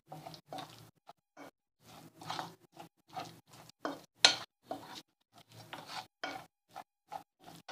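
Spoon stirring a thick gram-flour paste in a bowl: a run of short scrapes and squelches, about two a second and uneven.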